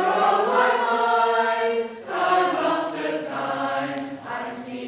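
A group of voices singing together in long held notes, in phrases with a short break about two seconds in.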